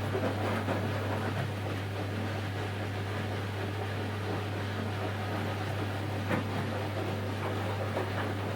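Washing machine running through its wash program: a steady low hum under a rustling wash noise, with a few faint clicks.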